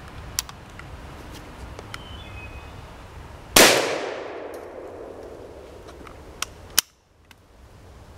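A single gunshot from a New England Firearms Tamer single-shot break-action shotgun firing a 3-inch .410 shotshell, about three and a half seconds in, with a long echo dying away. A light metal click comes before the shot, and two sharp clicks come near the end as the break action is opened.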